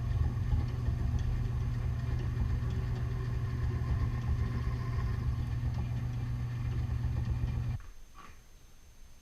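A machine motor running steadily with a low hum, which stops suddenly near the end, followed by a few faint clicks.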